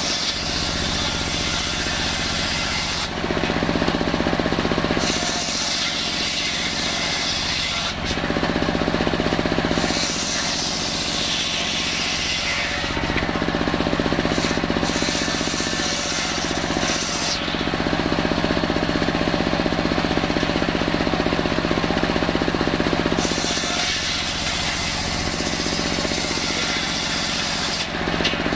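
Large bench-mounted circular saw running steadily with a constant low hum. The blade's hiss rises several times as planks of kayu salam wood are pushed through it, then falls back between cuts.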